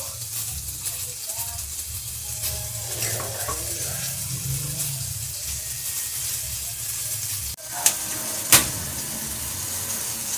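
Steady hiss and low rumble of a pot of coco sugar and honey syrup heating on a gas burner, with two sharp clinks a moment apart about eight seconds in, a metal spoon knocking the stainless steel pot.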